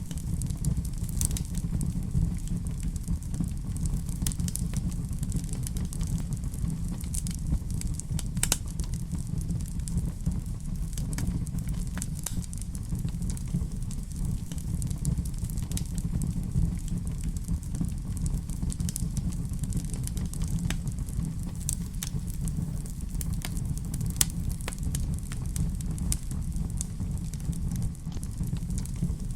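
Wood fire in a fireplace crackling, with a steady low rumble of the flames under frequent sharp pops and snaps.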